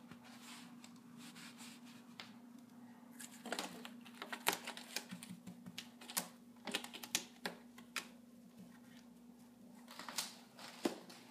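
Scattered light clicks and taps in irregular clusters, from a few seconds in and again near the end, as a kitten clambers about a cat tree close to the phone's microphone, over a faint steady hum.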